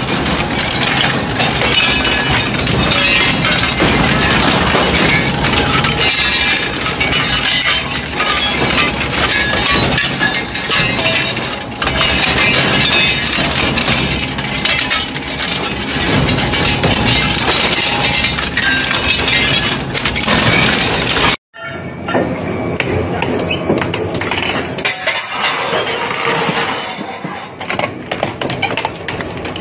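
Industrial metal shredder's rotating cutter blades crushing alloy motorcycle wheels: continuous loud crunching, cracking and clanking of metal breaking apart. About two-thirds of the way through the sound cuts out for an instant and resumes quieter as the blades work on a square metal tube.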